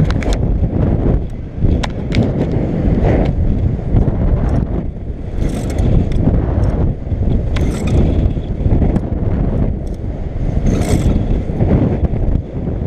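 Wind buffeting an action camera's microphone during an unpowered paramotor glide after an engine failure: a loud low rumble that swells and drops irregularly, with no engine note. A few faint clicks and rustles are scattered through it.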